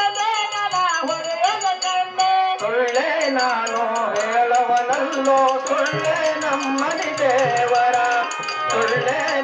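Live folk devotional stage music: a man singing through a loudspeaker, with melismatic phrases that start afresh about two and a half seconds in, over a steady tabla rhythm.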